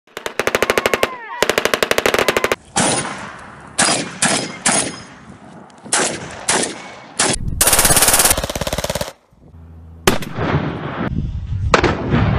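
Gunfire: three bursts of fully automatic fire at about a dozen shots a second, with single shots between and after them, each string breaking off abruptly.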